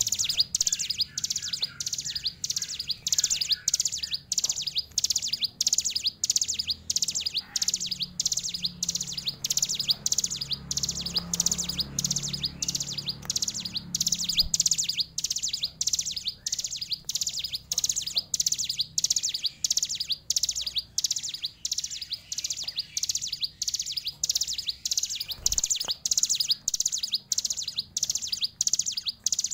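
Ciblek gunung, a small prinia, singing high, rapid chirping phrases repeated about twice a second without a pause.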